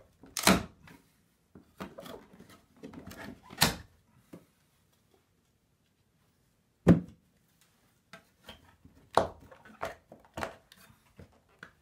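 Irregular sharp knocks and clicks from hand work on a wooden door jamb whose top casing has just been pried off. Quiet gaps fall between them, and the single loudest knock comes about seven seconds in.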